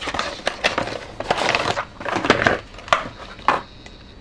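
Plastic packaging being handled, irregular crinkling and crackling with a few sharp clicks that stop about three and a half seconds in.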